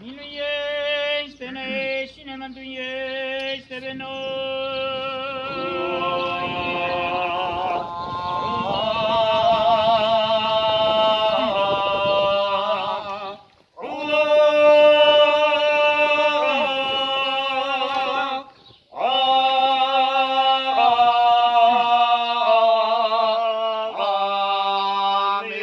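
Unaccompanied singing of an Orthodox memorial-service chant: slow, long-held notes with vibrato, moving in steps. It breaks off twice, briefly, in the second half.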